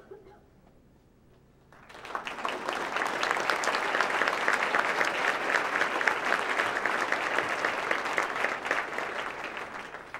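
Audience applauding. It starts about two seconds in, builds quickly, holds, and fades near the end.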